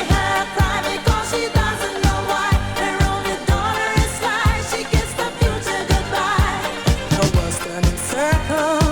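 Late-1970s Euro-disco song playing: a steady four-on-the-floor kick drum about twice a second under bass and a wavering sung melody.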